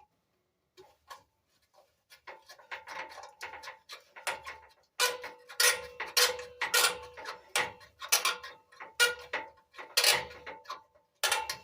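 Screwdriver turning a small screw into a car's grille bezel: a run of sharp metallic clicks that becomes a regular beat of about two a second a few seconds in.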